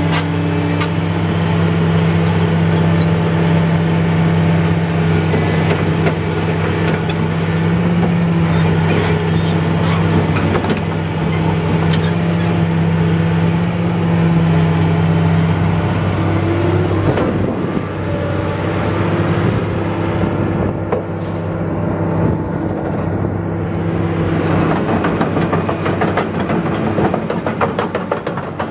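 Komatsu PC400LC-6 excavator's six-cylinder diesel engine running steadily, its low, even note shifting about halfway through. A fast rattle joins in near the end.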